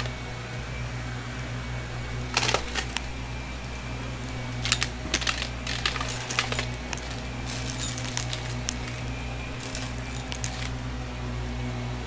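Shark upright vacuum cleaner running steadily on carpet, with a constant motor hum and high whine. Bursts of clicking and rattling come a couple of seconds in, around five seconds, and again for a few seconds near the end, as small bits of debris are sucked up into the canister.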